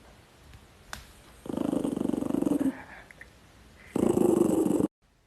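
Dog growling in two rough, rumbling bouts, the second cut off abruptly.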